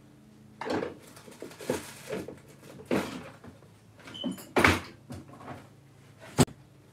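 Knocks and clicks of a screwdriver and a small battery-powered dog boundary unit being worked open on a workbench, with a sharp click near the end. A single short high beep sounds about four seconds in.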